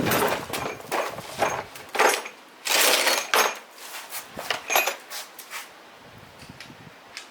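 Irregular clatter: a series of knocks and clicks with a scrape about three seconds in, as tools and metal parts are handled and set down.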